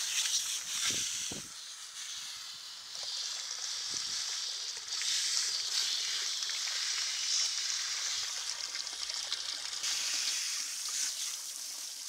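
Garden hose spraying water onto a yacht's bow anchor and deck fittings, a steady hiss with splashing that swells and fades as the spray moves. Two dull knocks about a second in.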